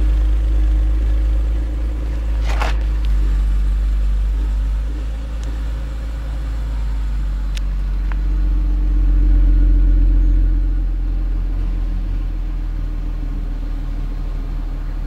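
BMW E39 M Sport's straight-six idling just after a cold start, running steadily through an aftermarket Remus exhaust. The idle swells briefly about nine seconds in, then settles.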